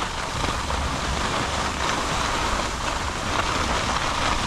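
Steady rushing noise of skis sliding over packed, groomed snow, with wind buffeting the microphone as a low rumble.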